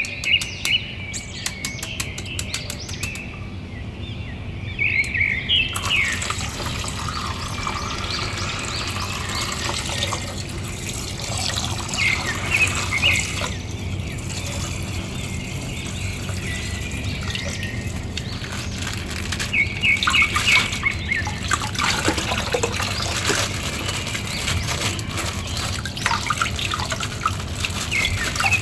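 Water splashing and sloshing in a plastic basin as hands squeeze and open bags of coloured water, with plastic bag crinkling; from about six seconds in the handling noise becomes continuous. Birds chirp in the background a few times.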